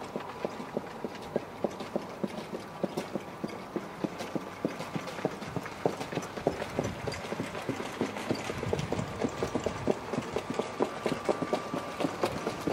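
Hoofbeats of a trotting harness horse pulling a sulky on a dirt track, a fast, even rhythm of knocks.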